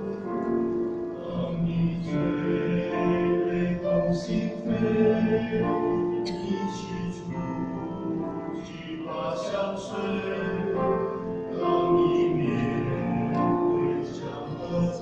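Mixed church choir singing a hymn in Chinese, in long held notes.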